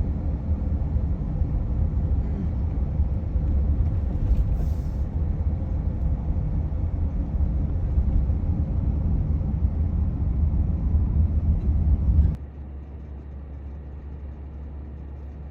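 Minivan's road and engine noise heard from inside the cabin while driving, a steady low rumble. About twelve seconds in it drops suddenly to a quieter, steadier low hum.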